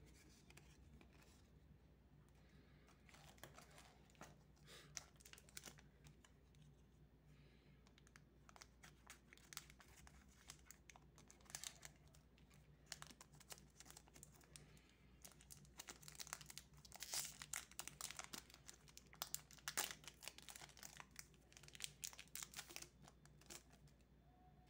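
Faint crinkling and tearing of a foil Magic: The Gathering booster pack wrapper being opened by hand, with cards being handled. The crinkling is busiest in the second half.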